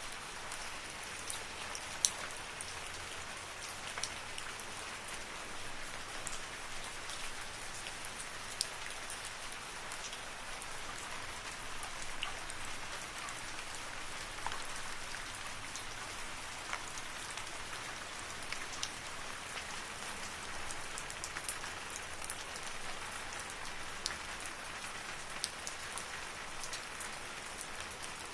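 Steady rain falling in a forest, a constant hiss with scattered sharper drip impacts close by.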